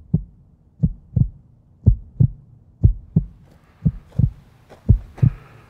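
Heartbeat sound: pairs of low thumps, about one pair a second, with a faint hiss building up from about halfway through.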